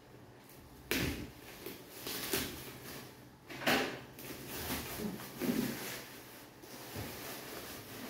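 Plastic bags rustling and jars bumping as bagged jars are shifted around inside a cardboard box, in several short bursts, the loudest a little under four seconds in.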